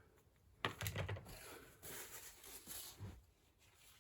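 Faint rubbing and scraping, with a few light knocks, from hand work on the filler of a boat-hull repair. It starts about half a second in and stops about three seconds in.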